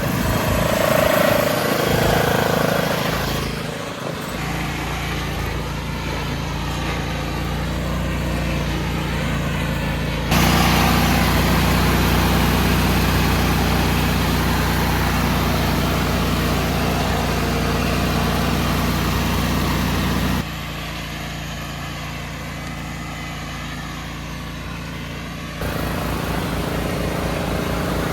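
Small single-cylinder engine of a riding lawn mower running steadily, with sudden jumps in loudness several times.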